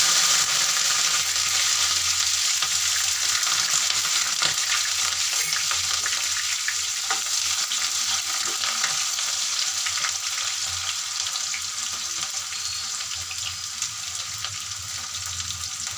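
Raw chicken pieces sizzling loudly in hot oil in a nonstick kadai, stirred with a spatula, with faint clicks of the spatula in the pan. The sizzle is loudest at the start and slowly eases.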